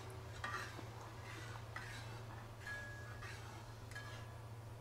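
Spatula stirring thick payasam in a kadai: four faint scraping strokes about a second apart, two with a light metallic clink, over a low steady hum.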